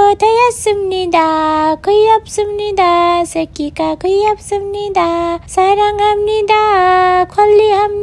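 A woman's high voice singing a crooning, lullaby-like tune in long held notes with short breaks, the sing-song cooing used to soothe a piglet held in her arms.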